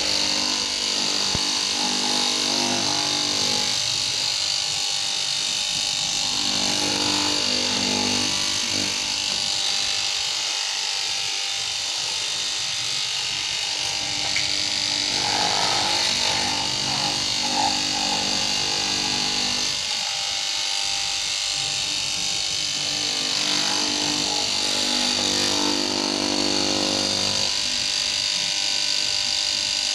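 Electric cloth-cutting machine running steadily with a high buzz as it cuts canvas, a lower humming note coming and going.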